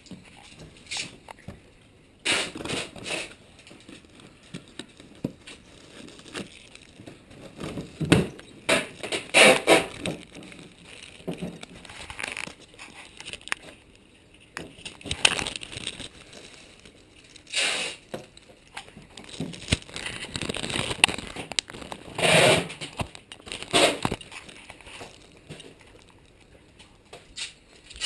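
Thin plastic bag crinkling and rustling in irregular bursts as it is handled.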